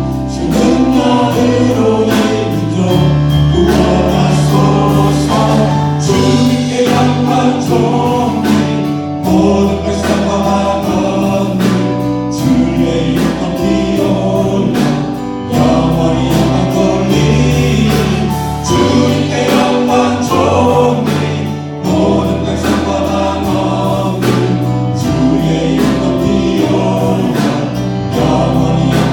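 Church praise team singing a worship song together in chorus over band accompaniment, with a steady deep bass line and a regular beat.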